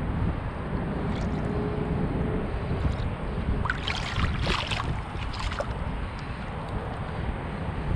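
Wind buffeting the microphone, with a short burst of splashing about four seconds in as a largemouth bass thrashes at the surface.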